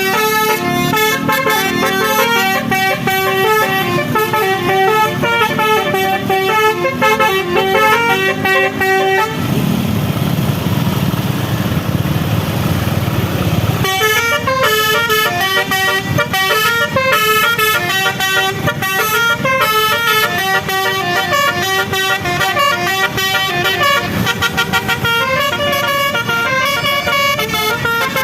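A bus's telolet musical air horn playing a stepping multi-note tune. It breaks off for about four seconds near the middle, leaving only a low rumble, then starts up again.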